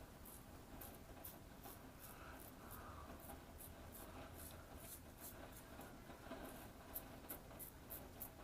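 Rockwell 6S safety razor with a Croma Diamant blade cutting stubble through lather: a run of faint, short scratchy strokes, a few a second, unevenly spaced.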